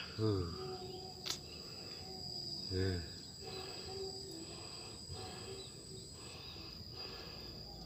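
Insects chirring steadily as two high-pitched tones, the higher tone stopping about six seconds in. A short mumble of voice comes near the start and again about three seconds in, and there is one sharp click about a second in.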